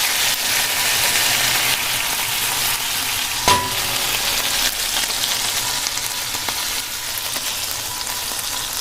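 Onion, garlic and tomato masala sizzling steadily in a hot pan, with one sharp metallic clink of a utensil against the pan about three and a half seconds in.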